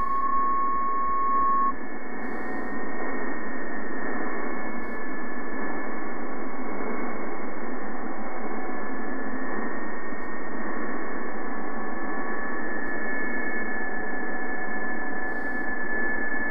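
Shortwave receiver audio from an SDR tuned to the 20-metre PSK-31 frequency near 14.070 MHz: steady band hiss, cut off sharply above and below, with several thin steady PSK-31 data tones on top of it. The strongest tone is a little under 2 kHz, and a tone near 1 kHz stops about two seconds in.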